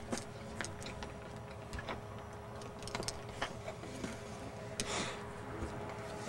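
Scattered light clicks and a brief rustle about five seconds in: handling noise on a camcorder.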